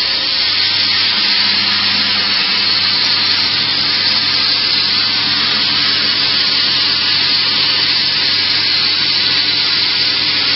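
CNC plasma cutter's torch cutting metal: a steady, loud hiss with a low hum underneath.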